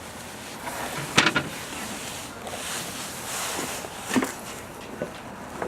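A few knocks and clatters of wood and gear being handled and set down, the loudest about a second in, over a steady hiss.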